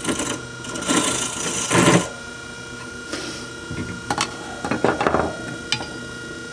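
Wood lathe turning an oak blank, with a hand-held turning tool cutting into the spinning wood in two loud scraping bursts. The lathe motor then runs on with a steady hum while the tool rest is unlocked and shifted, giving a few sharp metallic clicks and knocks.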